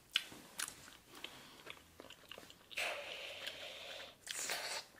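Bubble gum being chewed close to the microphone: scattered wet mouth clicks and smacks, with a steady breathy blowing sound for over a second about three seconds in as a bubble is blown.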